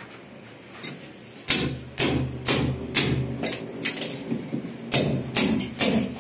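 Hammer striking a chisel to chip cement plaster from a concrete wall, about two sharp blows a second, starting about a second and a half in.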